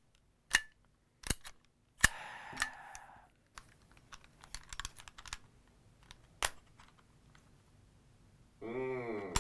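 Metal clicks from a 1911-style CO2 BB pistol being handled and worked by hand: a handful of sharp single clicks, with a short rushing noise about two seconds in. A brief vocal sound comes near the end.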